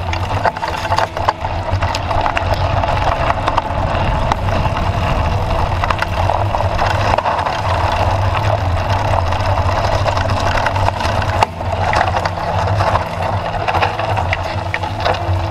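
Bicycle rolling over a rough dirt trail: a steady rumble of tyres and riding noise, with frequent clicks and rattles from bumps, picked up through a handlebar-mounted camera.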